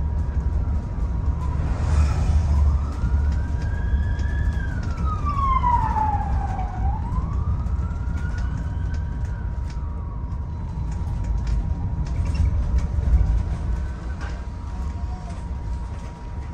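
An emergency vehicle's wailing siren, its pitch slowly rising and falling twice before fading, heard over the bus's steady low engine and road rumble.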